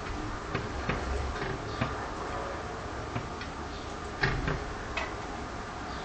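A sparrow's beak tapping on window glass: irregular sharp taps, about seven in all, the loudest a pair about four seconds in.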